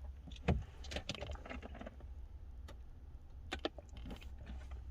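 Handling noises inside a parked car: scattered light clicks and knocks over a steady low hum.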